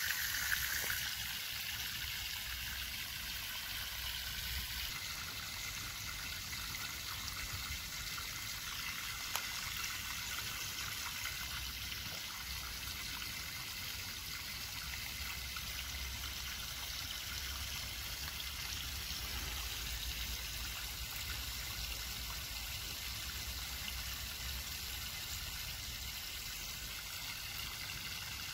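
Steady trickle of running water, with a low uneven rumble underneath.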